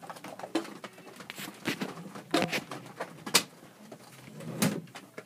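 Irregular clicks and knocks from objects being handled, with a couple of brief low pitched sounds in between.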